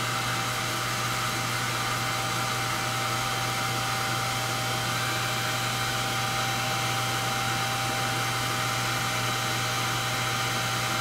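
Handheld hair dryer running steadily, a constant whoosh of air with a thin steady whine. It is blowing on a freshly airbrushed plastic model to dry the paint.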